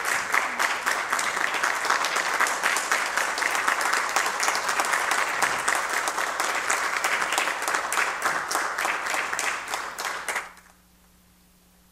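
A small group of people applauding, a dense run of hand claps that stops abruptly about ten and a half seconds in, leaving only a faint low hum.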